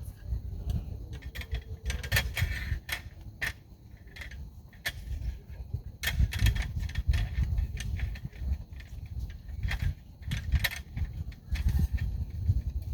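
Wind buffeting the microphone in a gusting low rumble, with scattered light clicks and clinks of small gear being handled.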